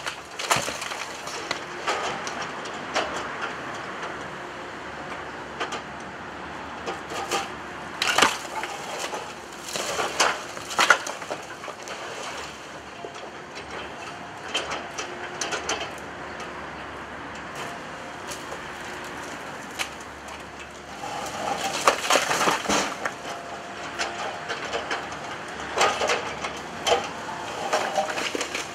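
Excavator demolition grab breaking down a brick wall: irregular cracks and crashes of breaking brickwork and splintering timber as rubble falls. A longer run of crashing comes about three quarters of the way through.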